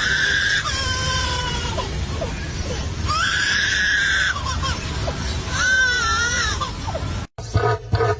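A bird's loud, drawn-out crying calls, four of them, some falling slightly in pitch, over a steady low rumble. About seven seconds in the recording cuts to a different, rapidly repeated call.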